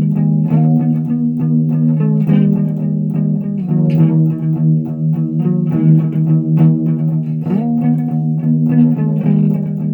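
Electric guitar through an amp, playing held notes and chords with frequent picked attacks and several slides up in pitch between them.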